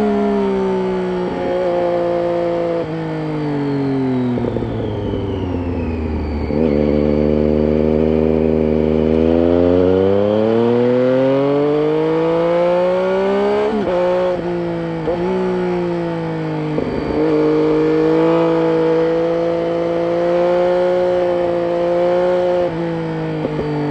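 Exhaust of a Triumph Street Triple 675's inline-three engine through an aftermarket Roads Italia silencer with its dB killer in. The engine note falls steadily as the bike slows, then climbs under acceleration, dips sharply a few times at gear changes and settles into a steady run near the end.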